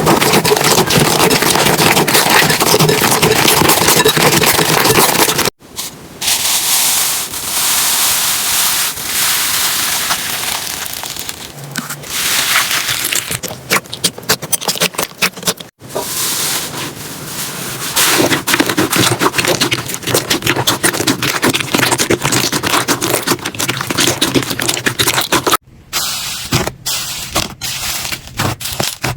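Hands working slime, with dense crackling, popping and scraping, in several short clips cut together with brief silent breaks between them.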